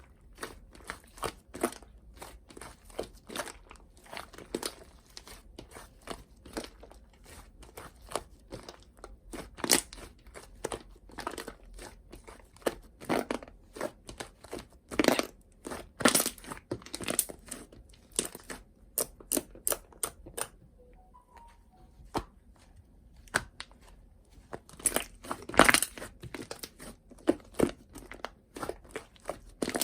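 Slime with shaving foam mixed in being kneaded and squeezed by hand, giving a quick irregular run of sticky clicks and crackling pops, with a brief lull about 21 seconds in.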